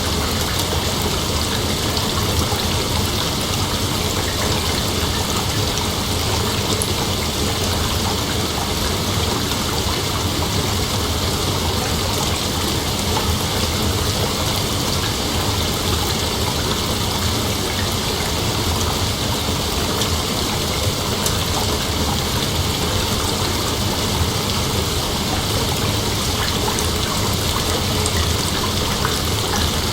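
Rain falling steadily: a dense, even hiss with no breaks or thunderclaps.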